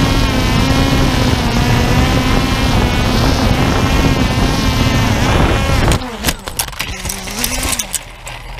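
DJI Phantom 2 quadcopter's motors and carbon fiber propellers whining steadily while it hovers, heard from its own on-board camera. About six seconds in the sound drops and the pitch wavers, broken by knocks and gusts as the drone shoots forward and tumbles.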